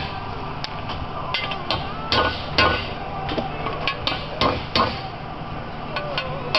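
Hammer tapping a tapered roller bearing race into an aluminium transmission case: a dozen or so sharp metallic taps at uneven spacing, roughly two a second, with a short pause near the end.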